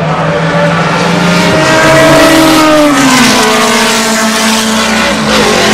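A vintage race car's engine is heard at speed as it passes the trackside fence, loud, with its note falling in pitch about two to three seconds in.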